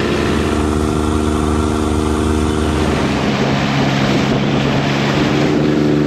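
Longtail boat's engine running steadily under way, a steady droning hum over the rush of water and wind past the hull. The engine note fades a little around the middle and grows strong again near the end.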